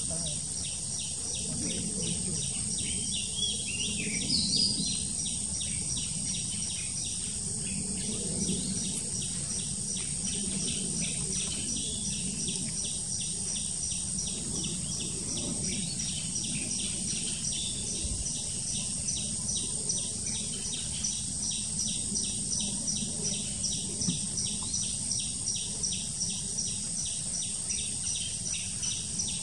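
Tropical tree-canopy ambience: a steady high-pitched insect drone with a regular, rapid insect pulsing, and a few short bird chirps in the first five seconds.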